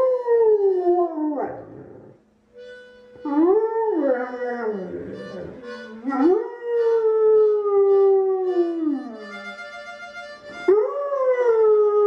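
A dog howling: four long howls, each rising quickly and then sliding slowly down in pitch, with short pauses between them. Faint steady musical notes sound underneath.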